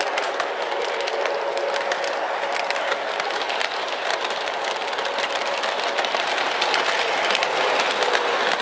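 Lionel Rock Island Rocket O-gauge toy train rolling on FasTrack, heard up close from on board the moving train. It makes a steady rolling hiss and rumble, with rapid, irregular clicks from the wheels over the track.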